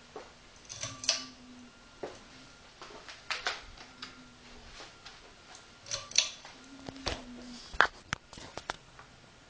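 Cat snoring softly: a short, low hum about every three seconds, one with each breath, mixed with sharp clicks and brief high-pitched squeaks.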